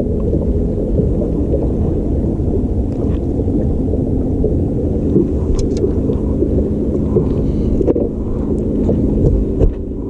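Wind rumbling and buffeting on the microphone, over a steady low hum. A few light clicks from the hook, bait and rod being handled.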